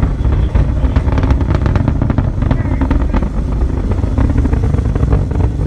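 Falcon 9 rocket's nine Merlin first-stage engines heard from a distance as a deep rumble with dense crackling, at full strength.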